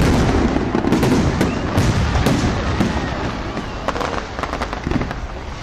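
Fireworks display: dense bangs and crackling from bursting aerial shells, thinning out to scattered cracks in the second half.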